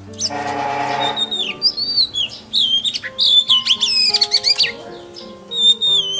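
A songbird singing rapid, high whistled phrases that slide up and down, with a harsh raspy note about half a second in. Background music with sustained low notes plays underneath.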